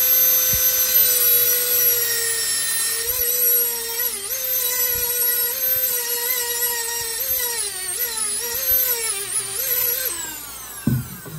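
Dremel rotary tool with a small cutting wheel, grinding a groove into the steel bearing race left on a 1997 Honda Accord front hub so the race can be split off. A steady high whine that sags and wavers in pitch as the wheel bites into the steel from about three seconds in, then winds down with falling pitch near the end, followed by a brief low knock.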